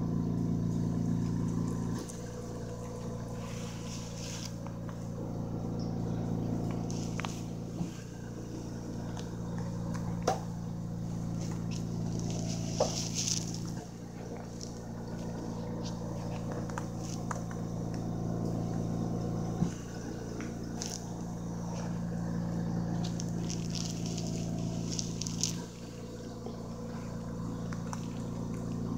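Guinea pigs chewing dried forage close up, with scattered small crisp crunches and clicks, over a steady low hum that drops and returns in steps every few seconds.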